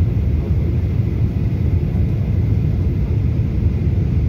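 Steady low rumble of jet airliner cabin noise in flight, the engines and airflow heard from inside the passenger cabin.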